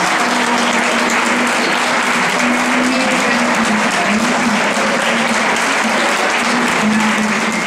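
Audience applauding, a loud, steady wash of clapping.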